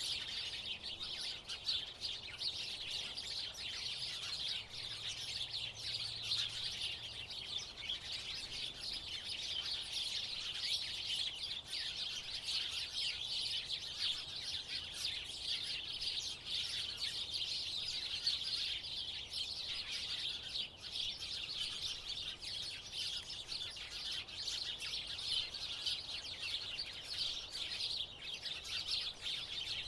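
House sparrows chirping continuously, many short chirps overlapping into a steady chatter.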